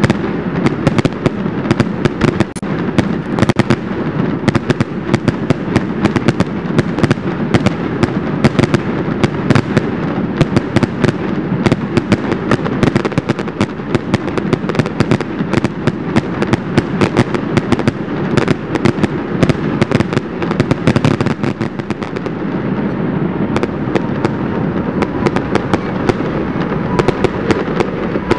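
Aerial fireworks display: a rapid, unbroken barrage of shell bursts and crackling over a continuous rumble.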